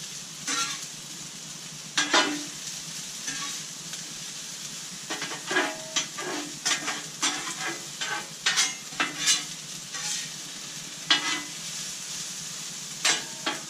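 Mushrooms, sweet peppers, onions and parboiled potatoes sizzling in oil on a portable Blackstone griddle. A metal spatula scrapes and taps on the griddle top as the food is turned, with the clicks coming thickest through the middle.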